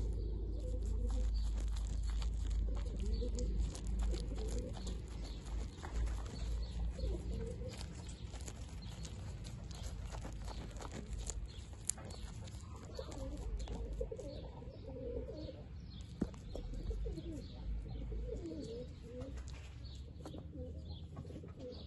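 Goat kid biting and chewing crisp Swiss chard stalks, a run of small crunching clicks, while doves coo repeatedly in the background.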